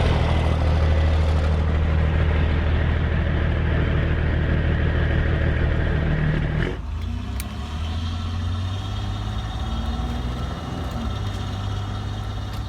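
Truck engine sound running steadily with a low hum. It drops suddenly about two-thirds of the way in to a quieter engine running.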